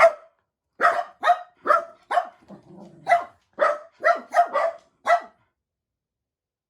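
Jack Russell Terriers barking excitedly, about a dozen sharp barks in quick, uneven succession with a brief low sound in the middle; the barking stops a little after five seconds in.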